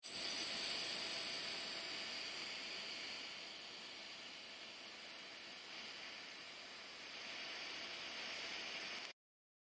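TIG welding arc hissing steadily, a little louder in the first couple of seconds, and cutting off suddenly near the end.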